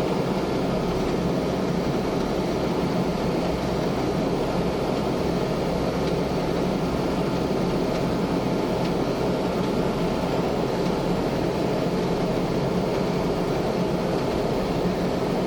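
Combine harvester's diesel engine running steadily at a constant speed during soybean harvest, a dense, unbroken drone with a low hum.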